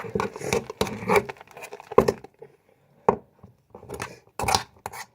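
Freshly set slime, stiffened by borax water, being stirred and scraped in a plate: irregular sticky scrapes and squelches, with a short pause about halfway.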